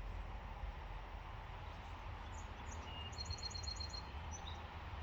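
A small bird chirping, with a quick run of about eight high notes a little past the middle, over a steady low background rumble.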